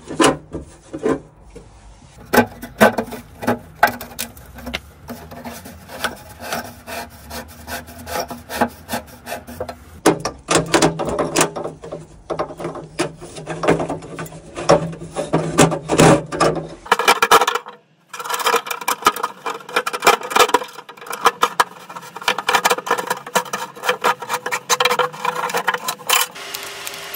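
Corrugated flexible hoses of a diesel heater, the combustion-air inlet and the exhaust pipe, being pushed and twisted onto their spigots and through the holes in the metal mounting box, their ridges rasping and scraping irregularly. The sound drops out for a moment about two-thirds of the way in.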